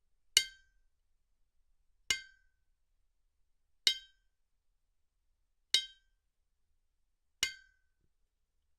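Metal struck against metal five times, evenly spaced a little under two seconds apart. Each strike is a sharp, high clink with a short ring that dies away quickly.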